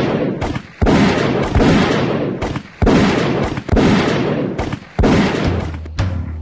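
Handgun shots fired one after another, about five, each with a long echoing tail off the concrete tunnel walls. Music with a low bass comes in near the end.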